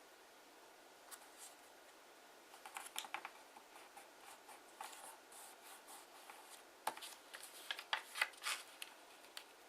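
Kraft origami paper being handled, folded and creased by hand: short scattered rustles and crinkles, busier and louder in the last few seconds.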